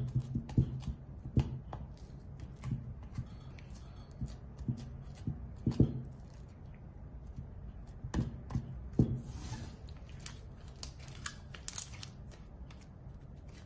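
Homemade slime being kneaded and pulled by hand in a glass bowl: irregular sticky clicks and pops, with a run of quicker, higher crackles as it is stretched and lifted out near the end.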